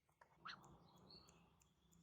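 Near silence between phrases of a female sirtu (cipoh) bird's song, with one faint short rising chirp about half a second in.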